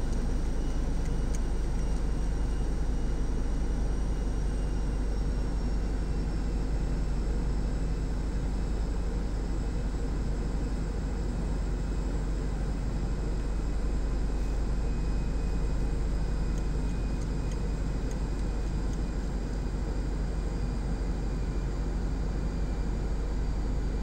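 Steady low rumble with an even hiss and faint high whines: constant background noise with no distinct events.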